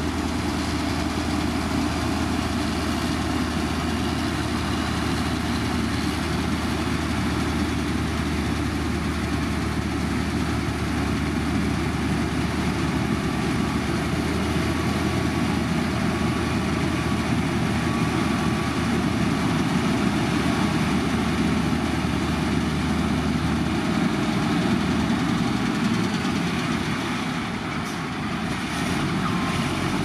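Heavy diesel construction machinery running steadily with a deep engine hum over broad mechanical noise. The deep hum drops away about three-quarters of the way through.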